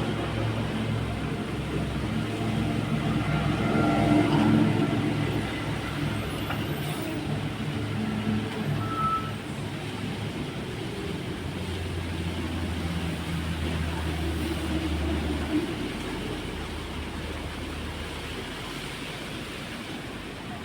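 Motor vehicle engines running in road traffic, a steady low hum that shifts as vehicles pass and slowly fades toward the end.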